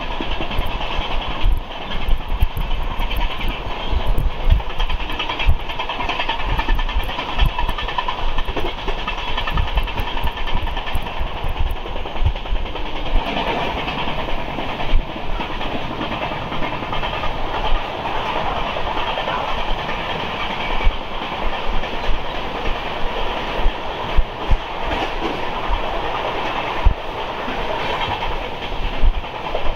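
Deccan Queen passenger coach running at speed, heard at its open doorway: a continuous rush of wheel rumble and wind, with irregular sharp clacks as the wheels cross rail joints and points.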